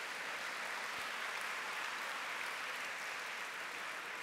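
Audience applauding, a steady, even clapping that eases off slightly near the end.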